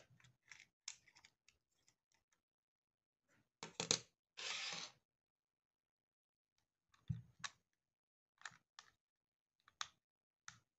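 Small clicks and taps of a screwdriver on the plastic case of a 1979 Minolta 460TX pocket camera as it is pried apart. About four seconds in there is a louder snap followed by a short scraping rush, then a knock and a few more clicks near the end.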